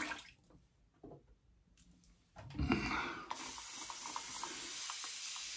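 A brief handling noise about two and a half seconds in, then a tap running steadily into a sink, an even hiss with a few faint ticks.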